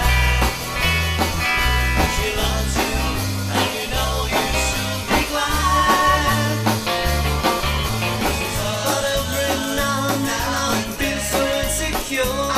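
A rock band playing live, with electric guitars, bass guitar and drums keeping a steady beat, and a lead singer.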